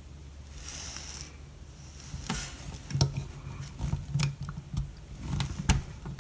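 Can opener blade of an Ozark Trail 12-in-1 multi-tool being worked into the lid of a tin can. A short scrape comes about a second in, then irregular metallic clicks and crunches as the blade punctures and levers through the lid.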